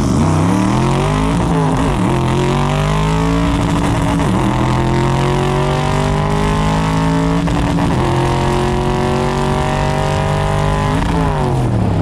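Cobra's V8 engine at full throttle on a drag-strip pass, heard from the open cockpit with wind noise: the pitch climbs and drops back at each of several upshifts through the new dual-disc clutch, then falls near the end as the driver lifts off at the finish.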